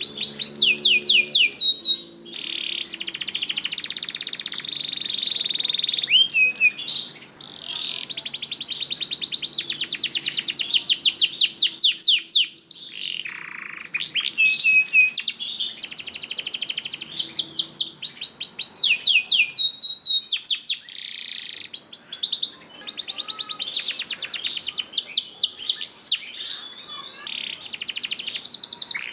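Domestic canary singing: long phrases of fast trills, each made of rapidly repeated sweeping notes, one phrase after another with short breaks between them.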